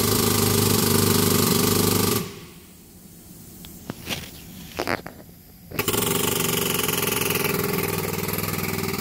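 Air-over-hydraulic jack's air-driven pump running with a fast, even buzz as it jacks up the front of a semi truck. It cuts off abruptly about two seconds in, leaving a few light clicks and a short hiss, then starts again about four seconds later.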